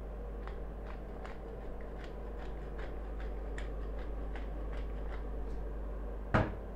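Light, irregular clicking, two or three a second, from seasoning raw schnitzels with salt and pepper, then a single loud knock near the end.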